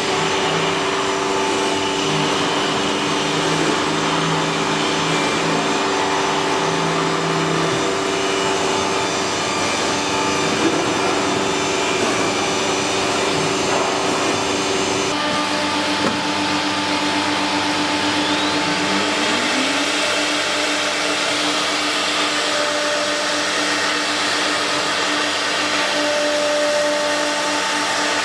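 CNC panel router (nesting machining centre) running, a steady whirring machine noise with several steady tones, typical of the spindle and dust extraction. The sound changes abruptly about halfway through, and a short rising whine follows a few seconds later.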